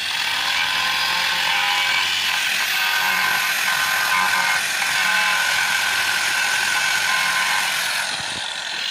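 Angle grinder running at speed with its clamp nut and flange pressed against concrete, grinding off the leftover fragments of a broken cutting disc: a steady high whine over a gritty scraping hiss.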